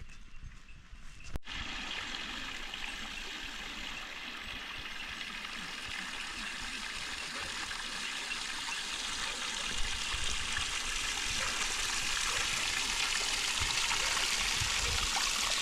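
Steady rushing of a flowing stream, starting suddenly about a second in and growing gradually louder toward the end.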